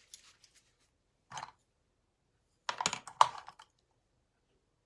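Light clicking and tapping in three short runs, the loudest and longest about three seconds in.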